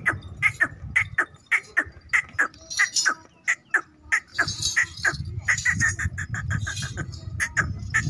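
Small birds chirping: a quick, steady run of short, sharp chirps, about three a second, over a low background rumble.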